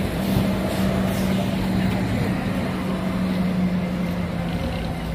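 City traffic at a busy junction: road noise from passing buses and cars, with one large vehicle's steady low engine hum that sinks slightly in pitch toward the end.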